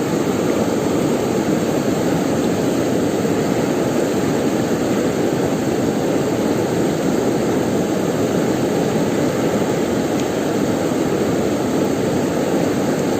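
Steady rushing of river water, an even noise that holds at one level throughout.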